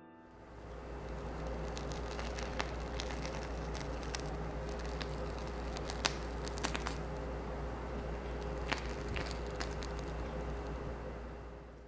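Buttercream squeezed from a plastic piping bag onto a frosted cake: faint squishing, with scattered small crinkles and clicks from the bag over a steady low hum. The sound fades in at the start and fades out near the end.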